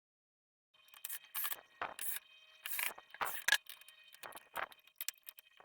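Irregular clicks, knocks and rattles of hands handling the TV and its parts, about a dozen sharp sounds over four seconds, over a faint steady high whine.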